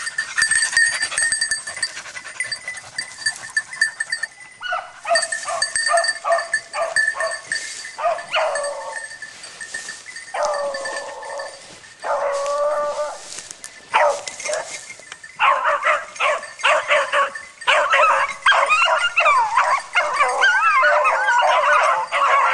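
Beagles baying at a wild boar, the sound of hounds holding game at bay. Separate barks and long drawn-out bays start about four seconds in. From about fifteen seconds several dogs give tongue at once in a dense chorus of yelps and bays.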